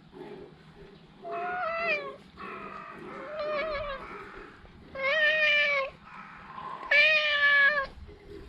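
Black stray cat meowing at the person stroking it: four drawn-out meows, the second softer and the last two the loudest.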